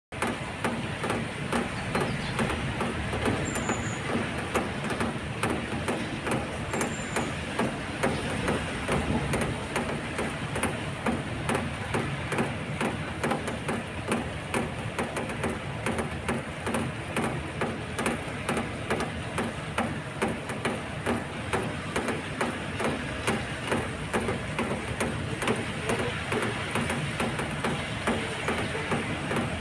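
Rain falling with drops tapping irregularly and rapidly on an awning, over a steady wash of passing car noise.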